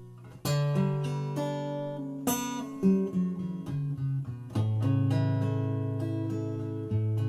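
Background music: acoustic guitar strumming and picking chords, with single notes in between and chords left to ring.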